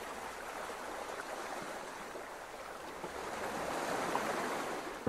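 Sea surf washing steadily on a pebble beach, a little louder in the second half.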